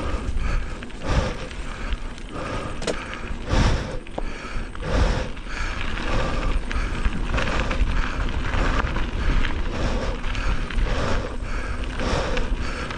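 Mountain bike on a trail ride: the bike's mechanical clicking and rattling, swelling and easing about once a second.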